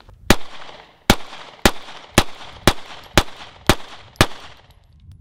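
Eight shots from a Smith & Wesson M&P Shield 2.0 9mm pistol at a steady pace of about two a second, each with a short ringing tail. The pistol is firing handloaded 124-grain flat-nose rounds and cycles them all without a stoppage.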